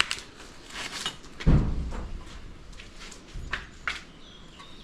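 A few scattered knocks and clicks, with a dull thump about a second and a half in.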